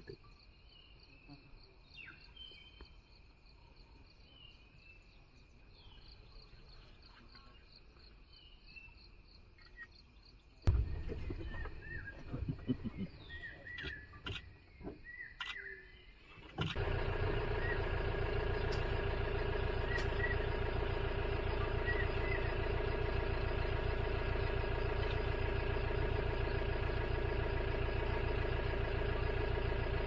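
Quiet forest ambience: scattered bird chirps over a faint steady insect drone. About ten seconds in, a sharp knock starts several seconds of irregular knocks and chirps. About seventeen seconds in, a much louder steady hum with fixed tones sets in and holds.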